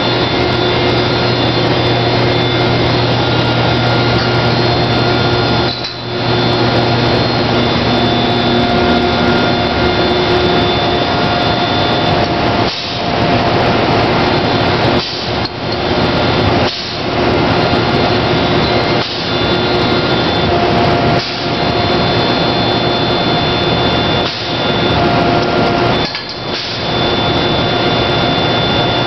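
Tornado 60.70 air-driven airless paint pump and its belt-driven piston air compressor running during spray painting: a loud steady mechanical drone and hiss with short drops in level every two to three seconds. A low hum underneath stops about nine seconds in.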